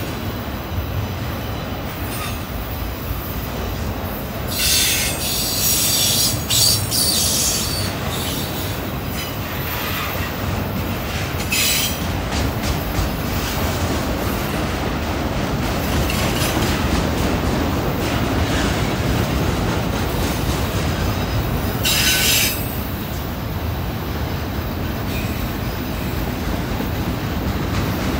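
Freight train of autorack cars rolling past on curved track: a steady rumble and clatter of steel wheels, with high-pitched wheel squeal flaring up several times, loudest about 5 to 7 seconds in and again about 22 seconds in.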